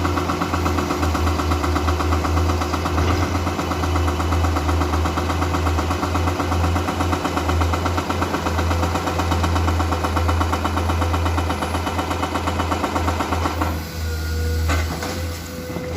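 Komatsu PC210 excavator's diesel engine running steadily with a fast even throb. About two seconds before the end, the sound eases and changes, with a faint steady tone.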